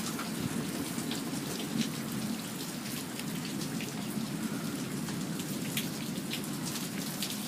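Steady rain falling, with scattered single drops ticking sharply close by.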